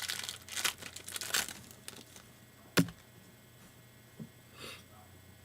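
A 2012 Panini Prizm football trading-card pack wrapper being torn open and crinkled for about two seconds. Near the middle comes a single sharp tap, the loudest sound, and later a small knock and a soft rustle.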